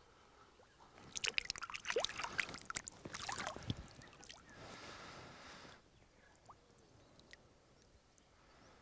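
Water splashing and sloshing in shallow lake water as a released carp kicks free of the angler's hands and swims off, a burst of irregular splashes lasting about three seconds, then a softer wash of water fading to quiet.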